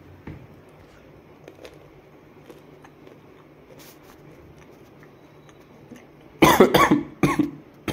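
A man coughing, a short fit of several hard coughs about six and a half seconds in. He has a cough that he blames on a very sour misal.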